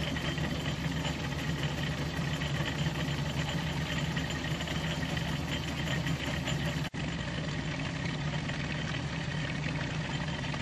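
Metal lathe running steadily in back gear at low spindle speed, a constant motor and gear hum, with a momentary break about seven seconds in.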